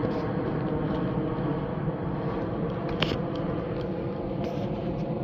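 A steady, many-toned droning hum outdoors, with a single sharp click about three seconds in.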